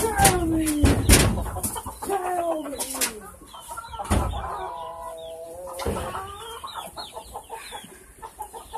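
Chickens clucking and squawking, with several drawn-out calls that slide down in pitch and a few sharp knocks in the first half.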